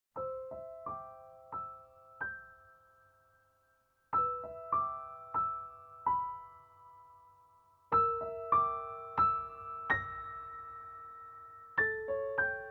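Background music: a soft piano melody of struck notes left ringing, played in short phrases that each start anew every four seconds or so.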